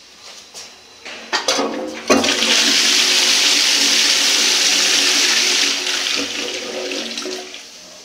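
1980s Royal Doulton Ashton toilet flushing: a few clicks, then a loud rush of water about two seconds in that holds steady and tapers off from about six seconds in.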